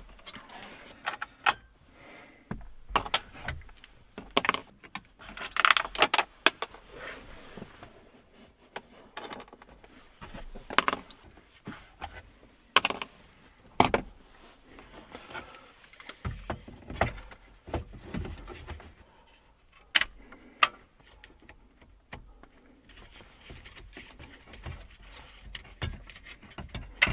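Plastic dashboard trim clicking, knocking and rattling as the centre-stack bezel is worked loose by hand and a plastic pry tool is used on the module stack: scattered sharp clicks and taps at uneven intervals, the loudest about six and fourteen seconds in.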